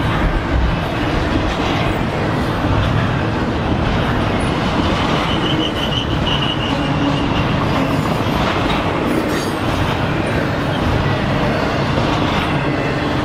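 Double-stack intermodal container train rolling past: a steady rumble and clatter of steel wheels on rail, with a brief high squeal about five seconds in.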